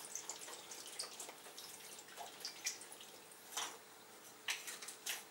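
Soy sauce poured from a bottle into a glass bowl of cubed pork, a faint trickle with scattered drips. A few light knocks sound in the second half as the pouring ends.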